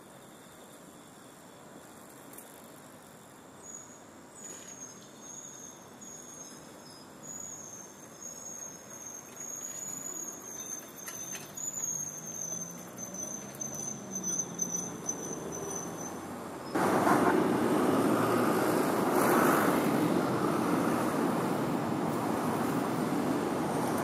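A thin, high, wavering insect trill runs through most of the first two thirds. About seventeen seconds in, a loud, even rushing noise starts suddenly, drowns it out, and lasts to the end.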